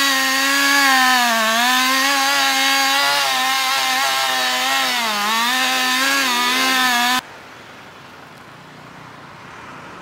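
Gas chainsaw running at high revs as it cuts into a thick tree trunk. Its pitch dips briefly twice as the chain loads up in the wood. The sound cuts off suddenly about seven seconds in.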